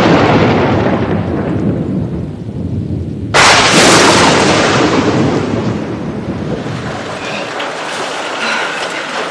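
A fading rumble, then a sudden loud clap of thunder about three seconds in that rumbles on and slowly dies away.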